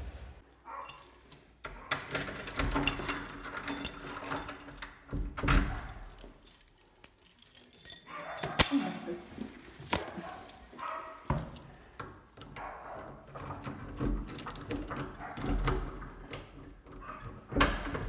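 Small objects being handled: irregular bursts of metallic jingling, clicks and knocks, the loudest about two to four seconds in and again near the middle.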